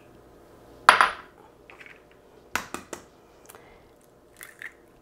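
Small glass prep bowls clinking as eggs are separated by hand: one sharp clink with a short ring about a second in, then a few lighter clicks and taps of glass and eggshell.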